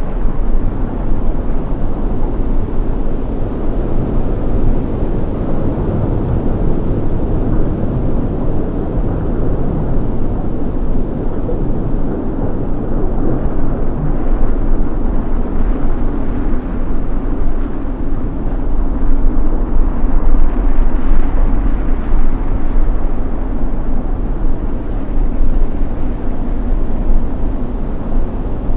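Loud, steady low rumble of outdoor noise with no distinct events.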